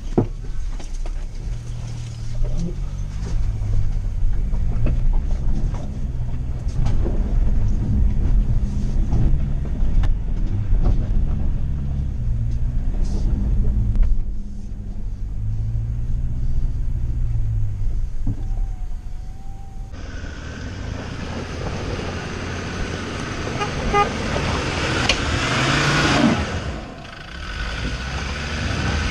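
Off-road 4x4's engine heard from inside the cab, its revs rising and falling repeatedly as it climbs a rough track. About two-thirds of the way through the sound switches to an outside view of a Land Rover Discovery Series II crawling down a stony slope, a steady noisy rush.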